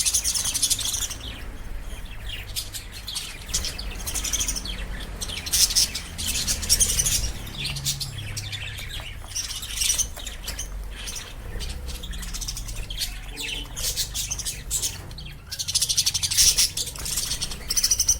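Lovebirds chirping rapidly and without pause in shrill high chatter, with louder bursts near the start, about six seconds in and near the end.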